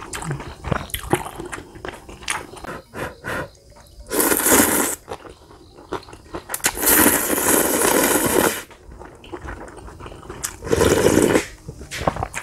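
Instant ramen noodles slurped loudly three times, the middle slurp the longest at about two seconds. Chewing and small clicks of a wooden spoon and chopsticks come between the slurps.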